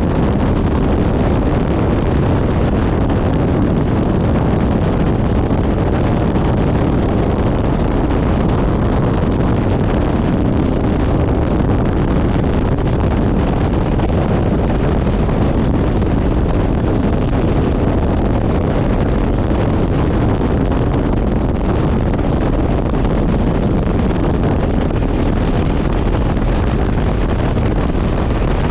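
Helicopter in flight, heard from aboard: a loud, steady, deep rushing noise from the rotor, engine and wind, unchanging throughout.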